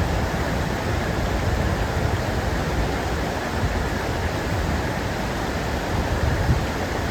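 A stream rushing steadily: a dense, even hiss of flowing water with a deep rumble underneath.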